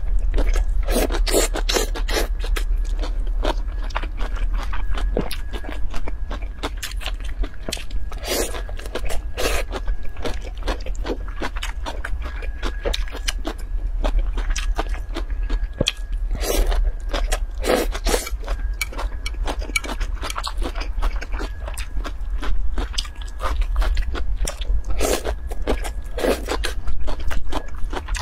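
Close-miked mukbang eating: wet chewing, smacking and slurping of spicy noodle strips with shredded vegetables, full of small mouth clicks, with a few louder slurps every several seconds. A low steady hum runs underneath.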